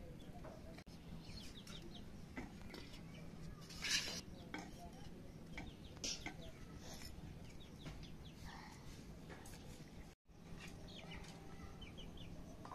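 Stainless-steel plates, bowls and tumblers clinking and clattering as they are set down and curry is served, with a louder clatter about four seconds in. Chickens cluck in the background.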